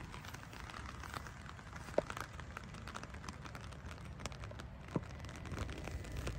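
Light rain pattering, with scattered drop ticks and two sharper taps about two and five seconds in.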